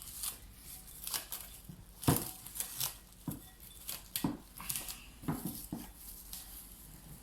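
Cling film being stretched and smoothed taut over a bowl, crinkling in a series of irregular sharp crackles, the loudest about two seconds in.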